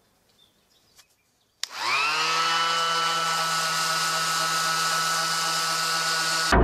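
Handheld electric sander switched on about a second and a half in: its motor winds up in pitch within half a second, then runs steadily while sanding a wooden board. Music cuts in right at the end.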